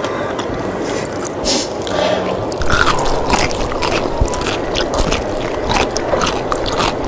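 Close eating sounds: spicy Samyang cheese ramen noodles being slurped and chewed, along with fried chicken being bitten and chewed, in many short irregular wet clicks and smacks.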